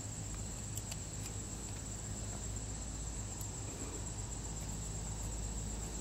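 A steady high-pitched whine over a low hum, with a couple of faint light ticks about a second in.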